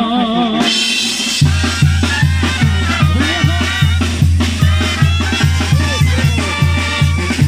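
A tamborazo band of trumpets and clarinets plays an instrumental passage between sung verses. A wavering held sung note ends about half a second in, the horns enter, and from about a second and a half in a steady low drum beat runs at roughly two and a half pulses a second.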